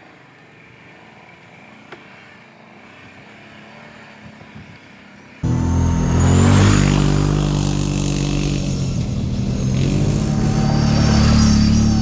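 Kawasaki Brute Force 750 ATV's V-twin engine running on a trail ride. It is faint at first, then comes in suddenly loud about halfway through, with its pitch rising and falling a little with the throttle.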